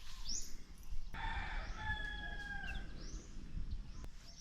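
A rooster crowing once, starting about a second in, one long call of nearly two seconds that drops off at the end. Small birds chirp briefly around it.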